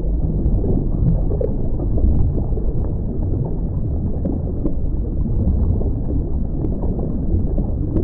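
Water lapping and gurgling: a steady low rush with faint scattered clicks.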